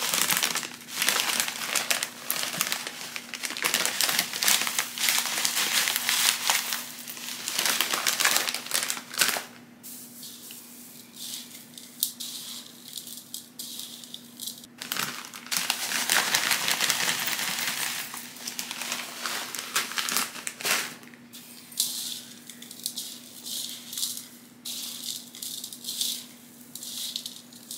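Gritty potting mix of pumice, perlite and charcoal rustling and crunching in a plastic bowl, as charcoal is poured from a crinkling plastic bag and the mix is stirred by hand. The sound comes in repeated bursts with short pauses.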